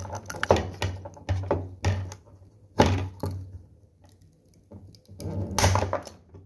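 Small solar panel being bent and snapped between an adjustable wrench and pliers: a series of sharp clicks and cracks as the tool jaws bite and the panel gives, with a louder burst of cracking near the end as it breaks apart.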